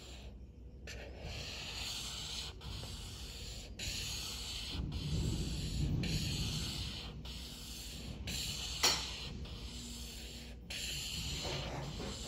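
Felt-tip marker rubbing back and forth on paper as an area is coloured in, a scratchy hiss broken into strokes by brief pauses. There is one sharp click about nine seconds in.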